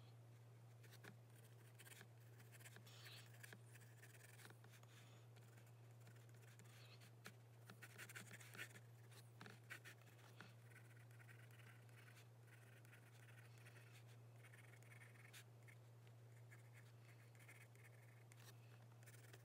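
Faint scratching of a pencil sketching on paper, in short irregular strokes that are busiest near the middle, over a steady low hum.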